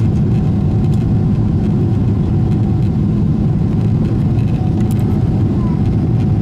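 Steady cabin noise inside a Boeing 777-300ER in flight: a deep, even rumble of engines and airflow, with a faint steady hum above it.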